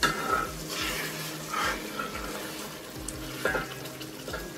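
Thick spinach gravy bubbling and spattering in a steel pot, with a steel spoon scraping and clinking against the pot several times.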